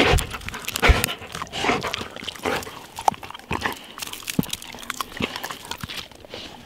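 Black Labrador Retriever panting and sniffing hard right at the microphone, in irregular breathy bursts. A few sharp knocks come through, about a second in, near the middle and again a little later.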